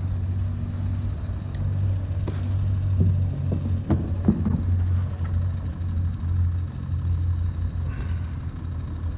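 Steady low drone of distant car engines in the background. A few short, sharp clicks and knocks come between about one and a half and four and a half seconds in, as the landing net with the fish is handled in the kayak.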